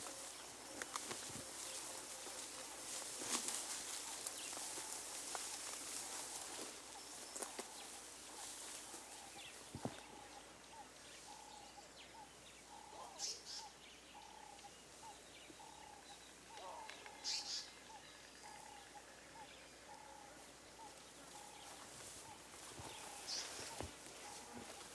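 Faint bush ambience. A bird repeats a short call note about twice a second from roughly halfway in, with a few brief high chirps. A high hiss runs through the first third.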